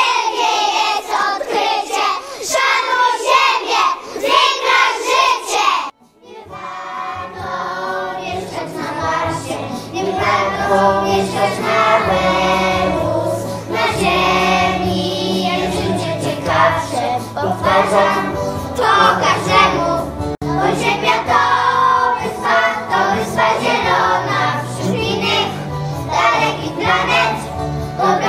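A chorus of young children singing together. About six seconds in the sound breaks off briefly, then the children's singing goes on over a musical backing track with a steady bass line.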